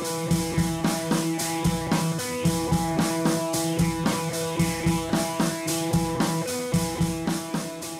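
Music with a steady drum beat and held guitar-like tones.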